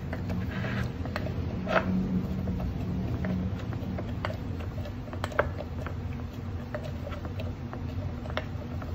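Cocktail muddler crushing cucumber, lime and cilantro in a glass, giving irregular small taps and clicks against the glass, over a steady low hum.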